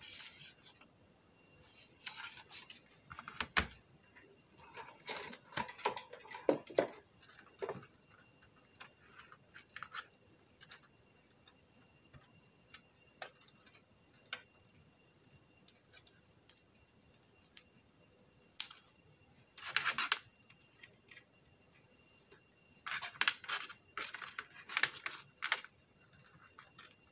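Handling noise on a workbench: the car stereo's metal chassis and its loose wires being moved and sorted, with rustles and scattered clicks in several clusters and one sharp knock about three and a half seconds in.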